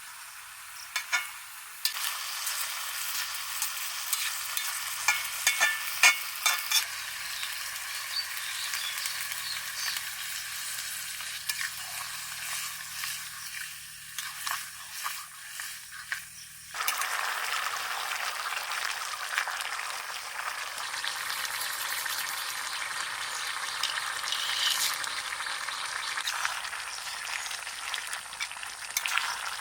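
Pan of pui shaak (Malabar spinach) curry sizzling as it cooks, with sharp knocks of a stirring utensil against the pan in the first several seconds. About 17 seconds in the sizzle suddenly becomes louder and fuller.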